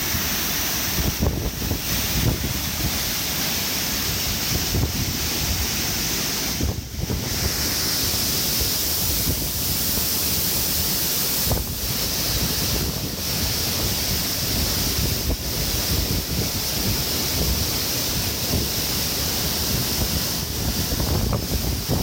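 Waterfall pouring and a shallow stream rushing over stones, a steady rush of water, with wind buffeting the microphone.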